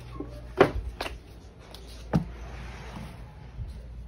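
Handling noise: three sharp knocks, the loudest about half a second in, followed by a short rustle just after two seconds.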